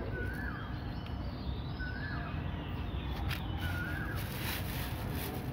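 A bird calling in the background: three short identical calls about two seconds apart, over a steady low rumble.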